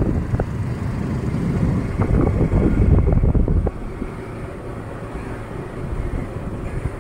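Wind buffeting the microphone over the low rumble of a moving vehicle, with a few scattered clicks; the rumble drops noticeably about three and a half seconds in.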